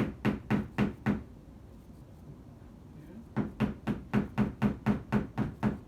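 Hammer striking nails into a thin flat-pack furniture panel. There are about five quick blows, a pause of two seconds, then about a dozen more, roughly four a second.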